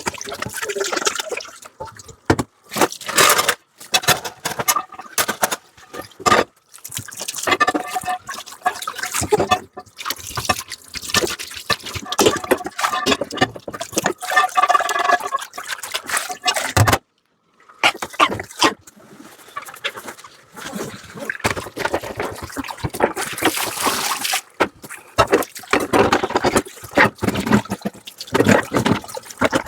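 Dishes being washed by hand under a running tap: water splashing and trickling, with plates and utensils clinking and clattering. The sound cuts out briefly about two-thirds of the way through.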